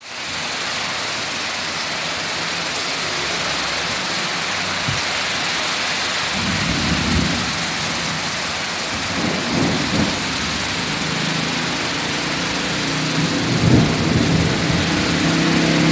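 Heavy rain pouring down in a steady hiss, with a few low rumbles swelling and fading about midway and near the end.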